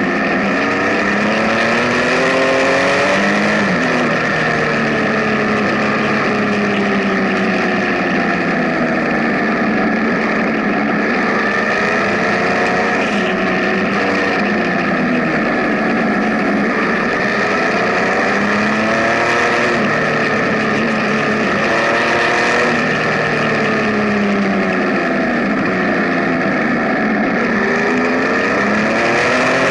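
Benelli TNT 1130 Café Racer's inline three-cylinder engine running on the move, its revs climbing and dropping again and again, over a steady rush of wind noise.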